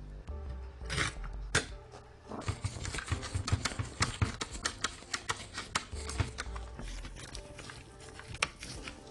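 Hand-tool work: an irregular run of sharp clicks and taps, thickening about two seconds in, over faint background music.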